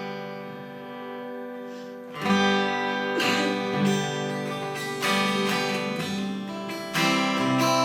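Acoustic guitar playing a song's instrumental introduction: a chord rings out and fades, then strummed chords begin about two seconds in and grow louder near the end.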